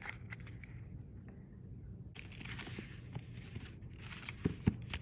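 Paper packaging rustling and crinkling as it is handled, starting about two seconds in, with two soft knocks close together near the end.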